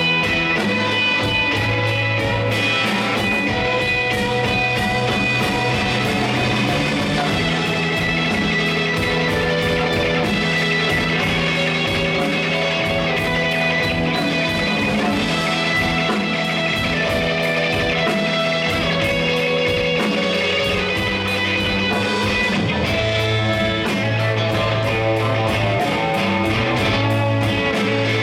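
Live instrumental rock played by a band: two electric guitars over bass guitar and a drum kit, dense and steady, with held low bass notes under the guitars.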